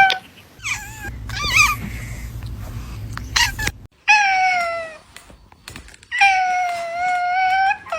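Kitten meowing: a few short, wavering mews in the first couple of seconds over a low rumble, then two long meows, the first sliding down in pitch, the second held steady.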